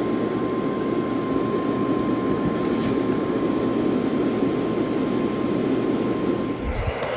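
NOAA Weather Radio warning alarm tone, a single steady tone of about 1050 Hz, heard over loud radio static and cutting off near the end. On weather radio this tone signals that an urgent warning message follows.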